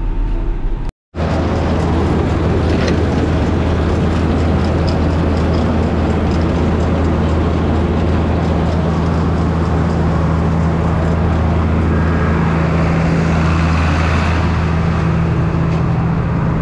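Large diesel farm machinery running steadily during hay chopping: a constant low engine drone with a broad rushing noise on top. It drops out for a moment about a second in.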